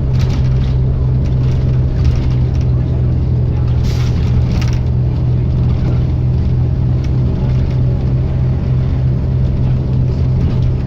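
Diesel bus engine running with a steady, heavy low drone, holding an even speed.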